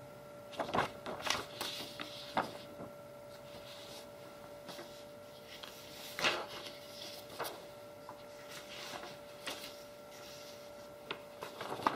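Sheets of thin, oil-painted office paper rustling and crackling in short irregular bursts as they are handled, picked up and laid down, with the loudest handling about a second in and around six seconds. A steady faint hum runs underneath.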